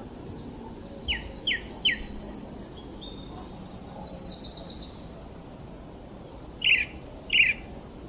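Aviary finches calling: three short falling chirps and quick high trills in the first half, then two loud sharp chirps near the end.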